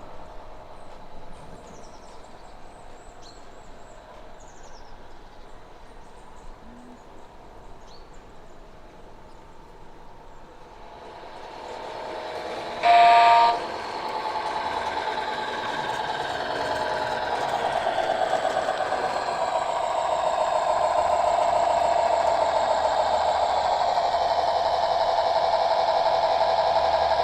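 A 16mm-scale garden railway train comes closer and gives one short whistle about halfway through. It then runs on, growing steadily louder. Birds chirp faintly at the start.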